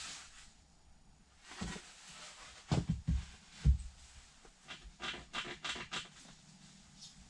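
Several dull knocks and thumps, then a quick run of short scraping or rustling sounds.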